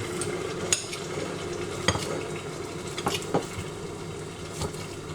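A fork mashing a ripe banana in a dish, with about five sharp clicks of the metal fork against the dish spread a second or so apart.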